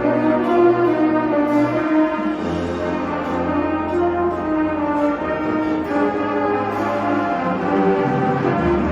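Brass-led music: horns and trombones holding chords over a bass line that steps to a new note every second or two.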